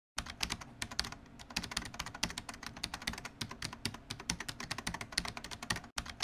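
Computer keyboard typing sound effect: quick, irregular key clicks, many a second, breaking off for an instant near the end and then carrying on.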